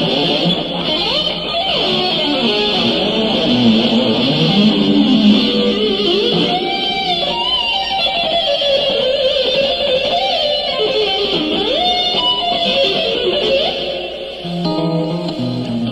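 Electric guitar playing a melodic lead line, with notes that slide and bend in pitch. Lower, steadier notes come in near the end.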